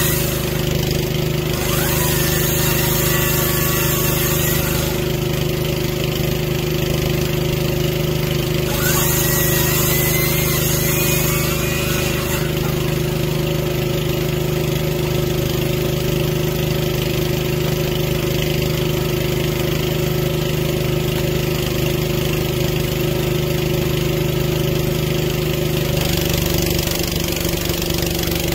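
Small engine idling steadily, a constant mechanical drone with little change.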